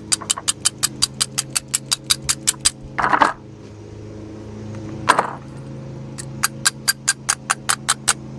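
A ratchet wrench clicking in quick, even runs as a stuck carburetor fastener is worked loose, with two louder scraping rasps about three and five seconds in.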